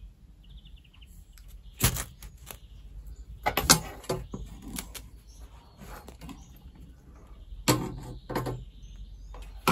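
Knife spine scraped down a small ferro rod in a series of short, sharp strokes, a second or more apart, striking sparks to light a bit of fire-starter tinder.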